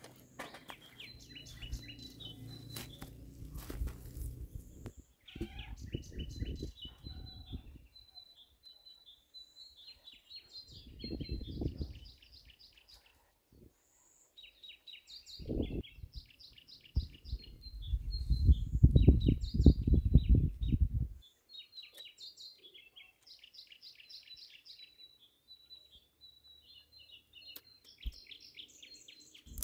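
Small songbirds singing short, repeated high chirping trills throughout, with several bursts of low rumbling noise in between, the loudest about two-thirds of the way in.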